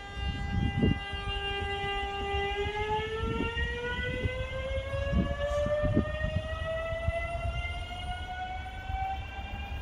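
BM 73 electric train pulling out, its traction motors whining. The whine holds one pitch, then after about two and a half seconds rises smoothly, about an octave, as the train gathers speed. A low rumble with a few dull thuds runs underneath.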